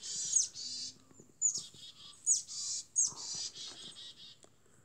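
Small songbirds singing in the trees: a high song repeated about five times, each phrase opening with a quick falling note and running into a rapid trill, with short pauses between phrases.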